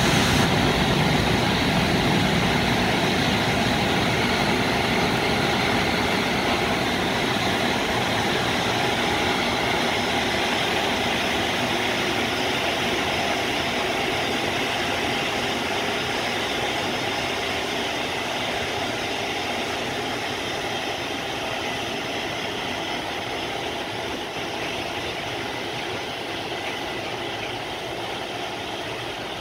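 Freight train of container flatcars rolling past close by behind an electric locomotive: a steady rumble and clatter of wheels on rail that slowly grows quieter as the train goes by.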